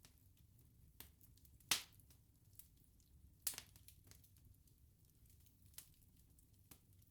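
Wood bonfire crackling: scattered sharp pops and small clicks over a low, steady rumble of burning. The loudest pop comes a little under two seconds in, another about three and a half seconds in.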